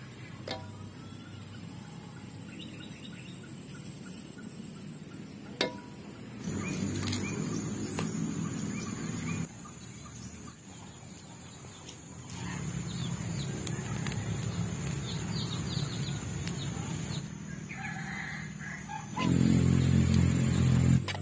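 Chickens clucking, with cooking in a wok over a wood fire: a few sharp clicks of the spatula against the wok and stretches of frying and stirring noise, loudest near the end as the noodles are tossed.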